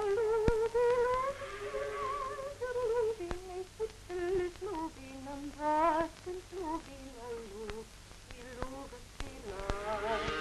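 A slow wordless melody with heavy vibrato, in short phrases that rise and fall, over a few clicks and the crackle of an old film soundtrack.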